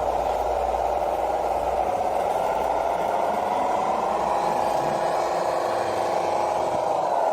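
Small electric motor of an RC construction machine running with a steady whine, its pitch wavering and sagging briefly near the end as the load changes.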